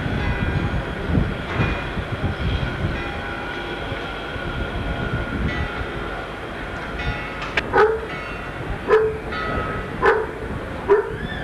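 A train running on the line below, heard from a height as a steady rumble with several held high tones. From about seven and a half seconds in, a dog barks about once a second.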